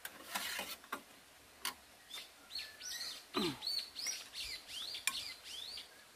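A songbird singing a run of quick, downslurred whistled notes, several a second, starting about two seconds in. A few short clicks come near the start.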